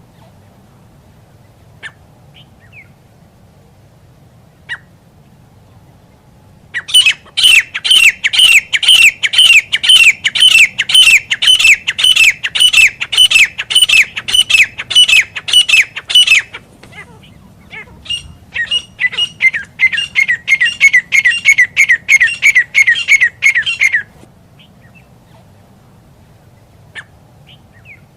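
Grey francolin calling: a long run of loud, rapid, repeated sharp notes, about three a second, for some nine seconds, then after a short pause a second, slightly quieter run of about six seconds.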